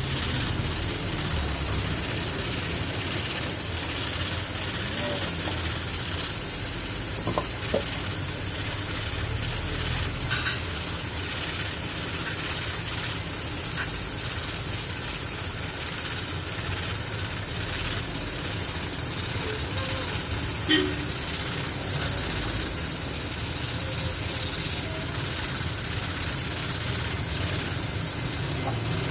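Steady, high hissing spray of a cleaning jet, with a low rumble underneath and a few faint knocks.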